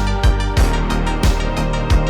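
Background music with a steady beat, about three beats a second, over sustained synth-like chords.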